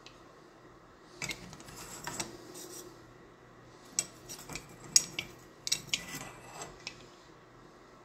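Metal clicks and scrapes as a stainless door knob is slid onto and pulled off the spindle of a heavy-duty Grade 1 cylindrical door lock, with the sharpest clicks about halfway through.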